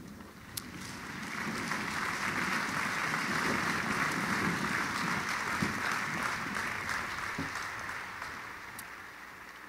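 Crowd applauding: the clapping builds over the first couple of seconds, holds, then fades away near the end.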